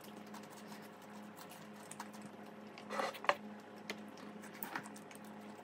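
Soft close-up eating sounds: a spoon tapping and scraping in a takeaway tub of tteokbokki and quiet mouth sounds, with a short cluster of clicks and taps about three seconds in and a few single ticks after. A faint steady hum runs underneath.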